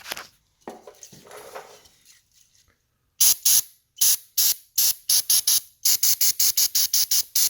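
Carb cleaner sprayed from a can in short hissing squirts onto the mower engine's air vane to wash off built-up dirt; after a few faint handling noises the squirts start about three seconds in and quicken to about four a second.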